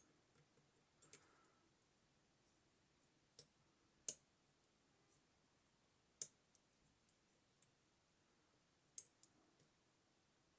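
Lishi pick working in a 5-pin lock: scattered sharp clicks a second or more apart, the loudest about four seconds in and again about nine seconds in.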